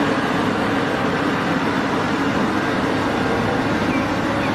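Heavy diesel engine of a large Cat 6015B hydraulic mining excavator running steadily, a constant low hum under a broad mechanical noise.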